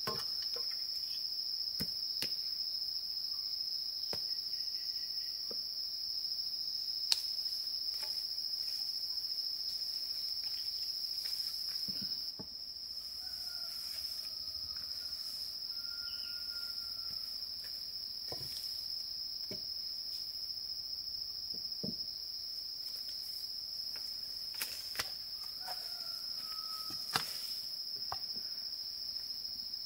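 Steady high-pitched drone of insects, with scattered sharp clicks and knocks and a few faint short whistles in the second half.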